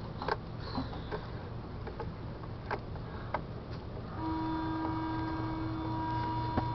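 Intoxilyzer 8000 breath-alcohol tester sounding a steady electronic tone, starting about four seconds in, as a breath sample is blown into it; the tone means the breath flow is enough for the instrument to take the sample. Before it, a few light clicks.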